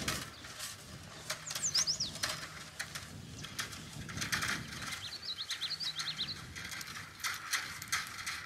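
Hand-held fence-wire reel spinning on its bar as 14-gauge steel wire is paid out, giving an irregular clicking rattle. A songbird chirps twice in the background, about a second and a half in and again around five seconds.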